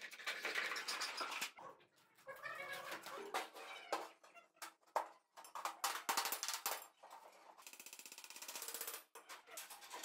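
Thin sheet metal being cut with hand shears and handled, with irregular snips, scrapes and clanks. A rapid, even ticking rattle comes about eight seconds in.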